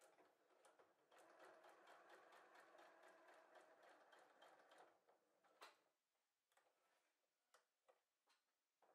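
Electric sewing machine stitching faintly, a steady run of rapid needle ticks for about four seconds that then stops; a sharp click and a few scattered clicks follow as the fabric is turned at the needle.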